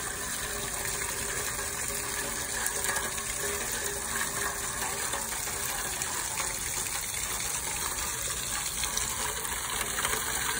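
Garden hose spraying a steady jet of water that splashes over wet stone paving and plants.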